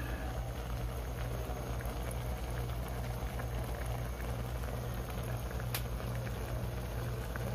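Vinegar broth of milkfish paksiw bubbling in an aluminium wok over a gas flame, the broth being cooked down until it is nearly dry. A steady low hum runs underneath, with one sharp click near the end.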